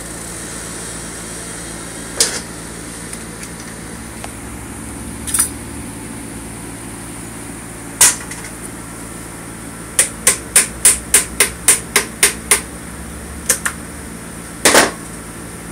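A hammer tapping on a metal engine casing. Single knocks come several seconds apart, then a quick run of about ten taps at roughly four a second, then a few more near the end, the last a doubled strike. A steady hum runs underneath.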